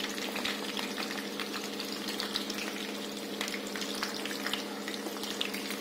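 Stuffed capsicums frying in hot mustard oil in a kadhai: a steady sizzle with scattered small crackles of spitting oil, while a small spoon turns them in the pan. A steady low hum runs underneath.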